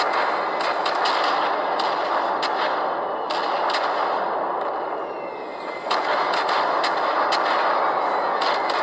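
A loud action soundtrack played back at full volume through a Sony Xperia smartphone's built-in speakers with Dolby sound off: a dense, continuous noise with frequent sharp gunshot-like cracks, thin and almost without bass.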